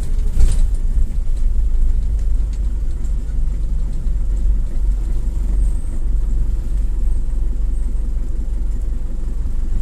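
Low, steady rumble of a car moving slowly in traffic, heard from inside the cabin, with a brief knock about half a second in.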